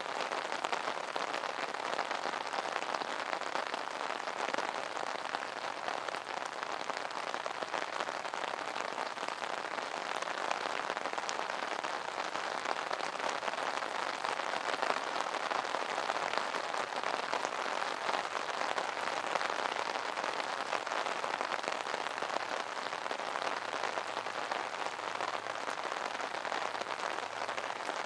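Rain falling on an umbrella: a steady, dense patter of drops on the canopy.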